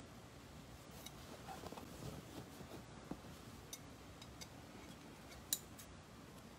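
Upholstery shears snipping into fabric: a few faint clicks of the blades with soft fabric rustling, and one sharper snip near the end.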